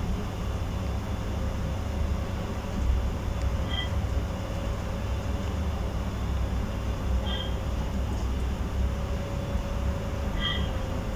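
A steady low rumble, with three short high chirps about four, seven and ten seconds in.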